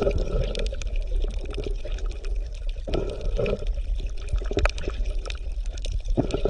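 Underwater ambience: bubbling, gurgling water with a low rumble and many scattered crackling clicks throughout.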